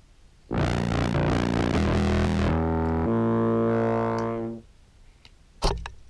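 Contrabass clarinet, run through a fuzz and filter pedal chain, playing a low buzzy held phrase for about four seconds between short silences. A short thump comes near the end.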